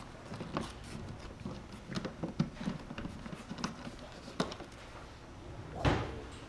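Light clicks and taps of hands working the plastic hatch cover of an RC catamaran hull loose, with a sharper click about four seconds in and a brief louder scrape near the end as the hatch comes free.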